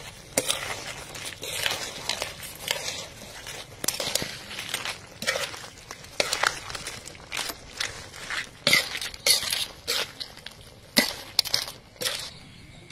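Metal spatula scraping and clanking against a wok as crabs are stir-fried, the crab shells clattering, over a steady sizzle. The strokes are irregular and sharp, and they stop just before the end.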